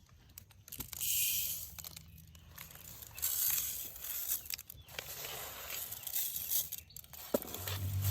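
Dry parboiled rice rustling as it is poured and handled in a vessel, in two short hissing bursts with smaller rustles between, and a sharp click near the end.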